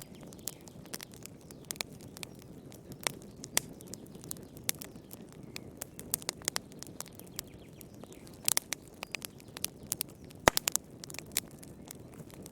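Wood fire burning in a fireplace: a steady low rush of flame under irregular sharp crackles and pops, thickening into a quick cluster of pops in the second half, with one loud snap about ten and a half seconds in.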